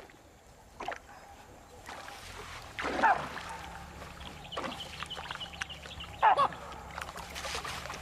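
Water splashing and sloshing as a Nile crocodile moves its head in shallow muddy water with a young baboon in its jaws, with short sharp baboon calls about three seconds in and again just past six seconds.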